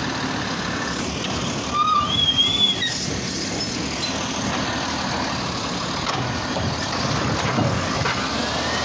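Automated side-loader garbage truck running steadily, with a short louder stretch of high squealing about two seconds in.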